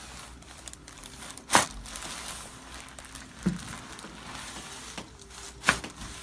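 Joints cracking during a chiropractic adjustment: two sharp cracks about four seconds apart, with a softer thump between them and light rustling throughout.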